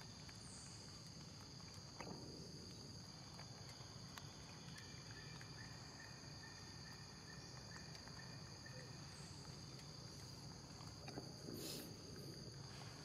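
Faint, steady high-pitched chorus of insects, with a few soft clicks.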